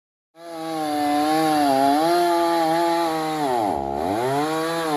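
Stihl chainsaw with an 18-inch bar running at high revs, starting abruptly a moment in; its pitch dips and recovers twice near the end.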